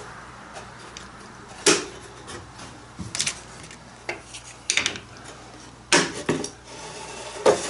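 Wooden strips and bar clamps being handled against a clamped plywood panel on a workbench: about six sharp knocks and clatters a second or so apart, with light rubbing between them.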